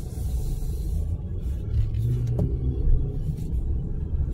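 Low, steady rumble of a turbocharged Ram 2500 pickup's engine and running gear, heard from inside the cab while the truck moves at low speed, with a brief hum near the middle and a single sharp click about two and a half seconds in.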